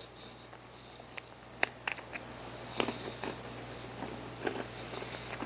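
A person chewing a crunchy rye cracker spread with apple jam: a handful of irregular, short crunches and clicks, over a faint steady low hum.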